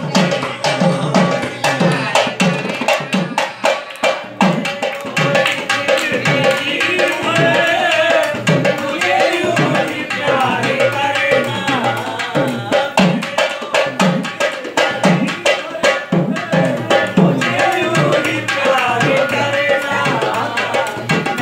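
A dholak, a two-headed barrel drum, played by hand in a steady, quick rhythm of deep strokes and sharp slaps. From several seconds in, a voice sings along with it.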